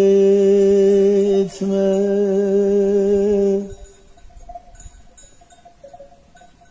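A man singing an unaccompanied uzun hava (bozlak), holding one long note with a short break about one and a half seconds in, and stopping a little past halfway. After that the faint tinkling of sheep bells from the grazing flock.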